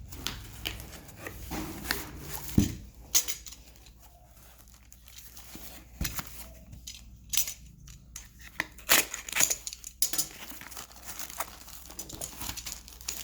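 Book packaging being handled and torn open by hand: irregular crinkling and rustling with scattered sharp clicks, quieter for a couple of seconds around the middle.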